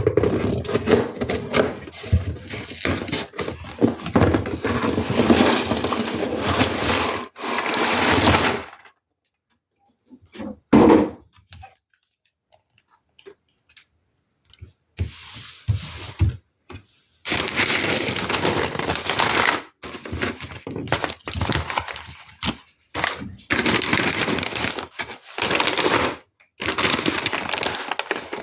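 Crinkly plastic bags of LEGO Technic pieces being handled and rustled, with pieces rattling. The crackling stops for a few seconds in the middle, broken by a single knock, then starts again in short spells.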